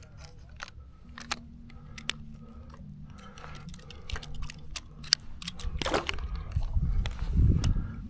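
Close-up handling noise while a trout is hung on a hand-held fishing scale: scattered sharp clicks and crackles over a low rumble. A louder rustle comes about six seconds in, and a stronger rumble near the end.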